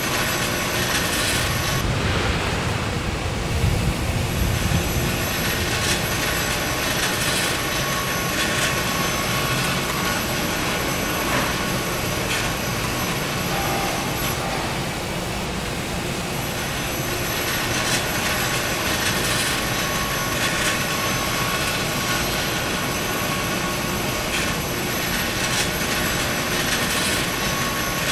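Steady din of metalworking factory machinery: a continuous mechanical noise with several high steady whines and faint scattered knocks, and a heavier low rumble a few seconds in.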